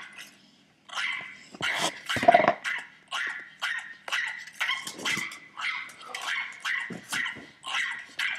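Dog barking repeatedly, about two barks a second, after a short pause near the start; the loudest bark comes about two seconds in.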